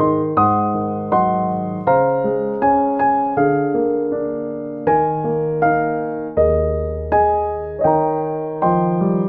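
Background music: a slow piano piece, chords struck about every three-quarters of a second, each fading before the next.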